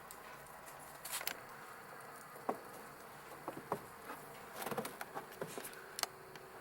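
Faint, irregular crunches and clicks of someone moving about in deep snow, a few at a time with short gaps between them.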